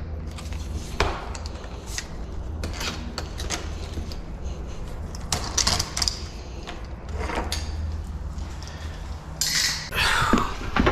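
Scattered clicks and knocks of door-lock hardware and tools being handled, over a steady low hum, with a brief busier rattle near the end.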